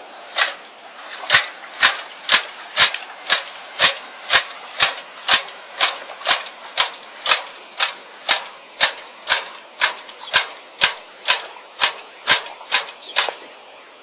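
A steady run of sharp knocks, evenly paced at about two a second, from a tool being worked by hand.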